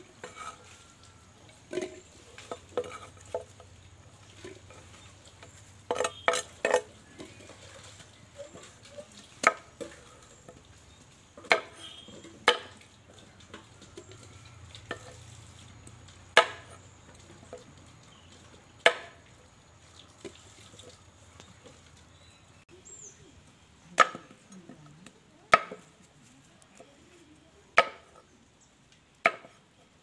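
A machete chopping peeled manioc (cassava) roots on a wooden board: sharp single knocks, unevenly spaced a second or more apart, with a quick run of several strokes about six seconds in.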